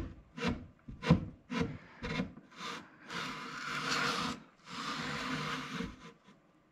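Stihl chainsaw bar with plywood spacer guides being worked back and forth in the slot of a plywood jig, wood rubbing and scraping on wood: about six short scrapes and knocks roughly half a second apart, then two longer rubbing strokes. The guides are being test-fitted in the jig.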